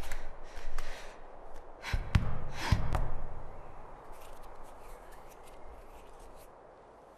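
A woman's ragged, gasping breaths with two heavy thumps of a fist against a brick wall about two seconds in, then quieter, fainter breathing.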